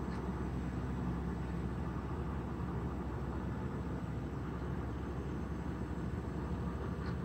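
Diesel farm tractor engines running steadily at work on a pile of chopped sorghum silage, a continuous low rumble.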